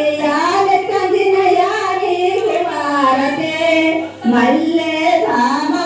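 A high female voice singing a slow melody in long held, gliding notes, with a short pause for breath about four seconds in.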